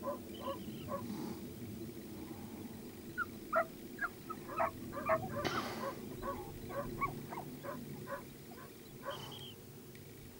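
A series of short, repeated animal calls, a dozen or more, bunched most thickly in the middle, over a steady low background noise.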